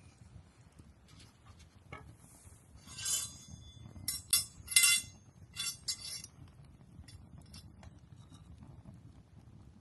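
Wood campfire burning: crackling and snapping over a low steady rumble of the flames, with a cluster of loud, sharp pops from about three to six seconds in.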